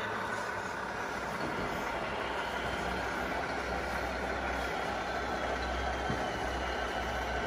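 Radio-controlled scale model trucks running: a steady mechanical hum with a faint high whine over it.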